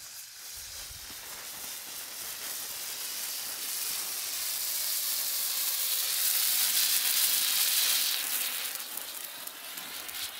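A handheld red flare burning with a steady high hiss that grows louder toward the middle and then fades.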